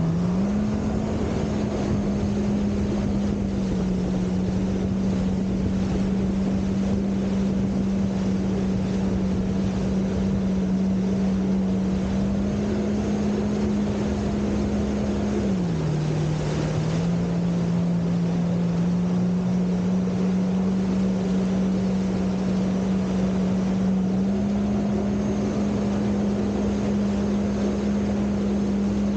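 Jet ski engine running at speed, a steady drone whose pitch steps up and down a little with the throttle. It drops briefly about halfway through, then climbs back. Underneath is a hiss of rushing water and wind.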